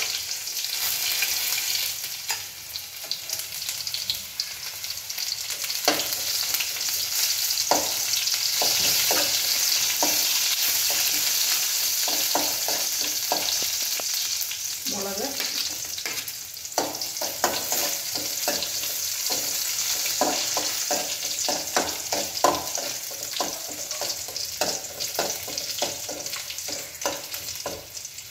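Sliced shallots and dried red chillies sizzling steadily in hot coconut oil with mustard seeds in a metal kadai, the tempering for a curry. A metal spoon scrapes and taps against the pan as they are stirred, more often from about six seconds in.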